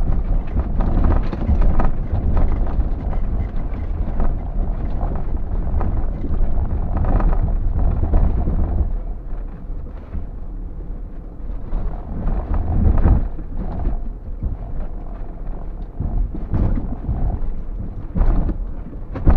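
Off-road vehicle crawling over a rough, rocky track: a low rumble of engine and tyres with irregular knocks and thumps as the wheels and body jolt over stones. The rumble eases about nine seconds in, and the loudest thumps come about two-thirds of the way through and near the end.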